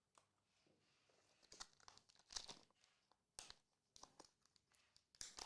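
Faint, scattered rustling and tearing of packaging as a trading-card pack is opened by hand, getting louder near the end.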